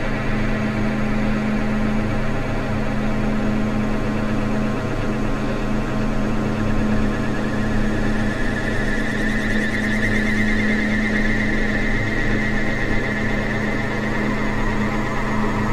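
Dark ambient drone music: steady low droning tones under a hissing noise texture, with a high whistling band swelling in about halfway through.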